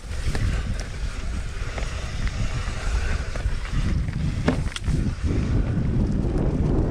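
Wind buffeting the microphone over the low rumble of a mountain bike rolling on a rough trail, with a few sharp rattles and knocks from the bike, the strongest about four and a half to five seconds in.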